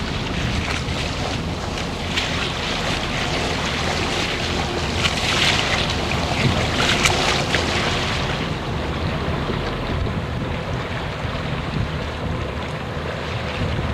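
Classic runabout speedboat under way: the steady low rumble of its Volvo Penta V8 inboard engine, with water rushing along the hull and wind buffeting the microphone. The rush of water is loudest around the middle and falls away about eight seconds in, leaving mostly the engine's rumble.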